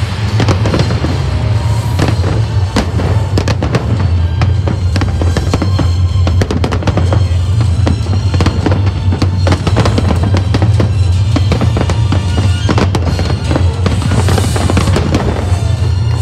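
Aerial fireworks in a dense barrage: many shells bursting in quick succession, with rapid bangs and crackling over a continuous low rumble.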